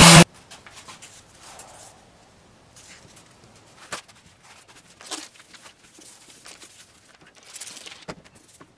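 Electric random orbital sander cutting off just after the start. The rest is quiet with a few faint squirts from a hand spray bottle partway through and the soft rustle of a cloth wiping the board near the end.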